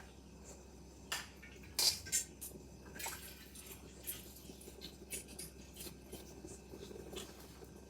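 Light kitchen handling clatter: a handful of scattered clicks and knocks of cookware and utensils being moved, the loudest about two seconds in.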